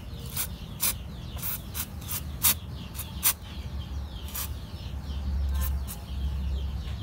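Aerosol spray can of paint remover hissing in about ten short spurts through its straw nozzle, with a low rumble underneath.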